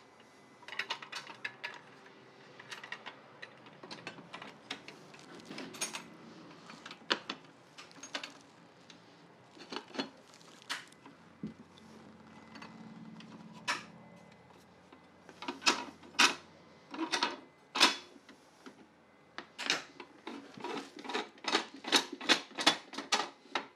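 Irregular clicks and clacks of hard plastic and metal parts being handled and snapped into place on a cordless table saw during setup, coming thicker and faster in the second half.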